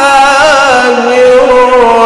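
A man's voice in melodic Quran recitation, holding long notes with a wavering ornament about half a second in, then stepping down and holding a lower note.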